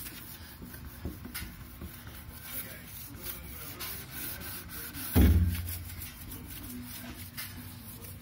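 Fabric softener sheet rubbed back and forth over a motorcycle windshield, wiping off dead love bugs, with one short loud low thud about five seconds in.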